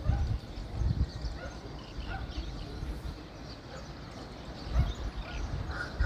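Dawn outdoor ambience: scattered short bird calls over an uneven low rumble.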